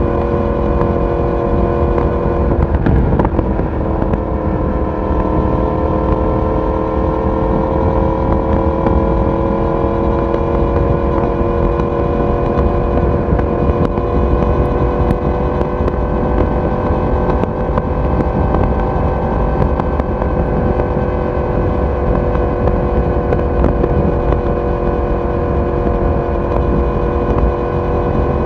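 Yamaha YZF-R1's inline-four engine and exhaust under way at a steady cruise. After a brief break about three seconds in, the engine note comes back lower, as after an upshift, and then climbs slowly as the bike gently gains speed. Wind and road rush run underneath.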